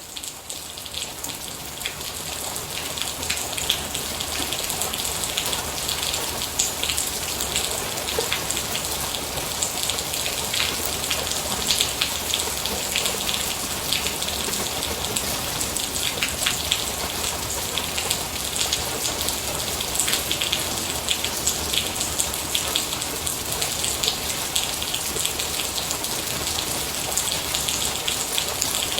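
Steady rain falling on a surface: a dense hiss full of individual drop hits. It rises in level over the first few seconds, then holds steady.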